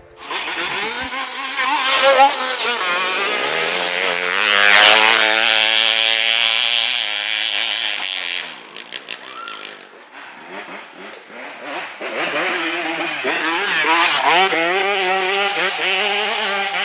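Dirt bike engines running and revving up and down on a trail ride, the pitch rising and falling with the throttle. The engines fade away a little past halfway and build again toward the end.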